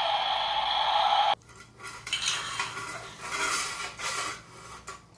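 A steady whirring noise cuts off abruptly about a second and a half in. After it come irregular scrapes and light clinks of sand and small rocks pushed around by a toy bulldozer.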